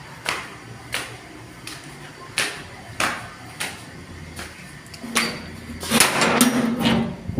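Something loose banging in heavy wind: sharp knocks about every two-thirds of a second, like a door or window knocking in its frame. About five seconds in, the knocking turns louder and denser, with a rush of noise and a low hum.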